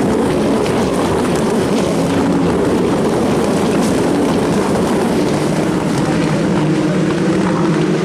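IndyCar race cars' engines running at speed on track, several cars passing in turn. The sound is a loud, steady engine note whose pitch shifts as each car goes by.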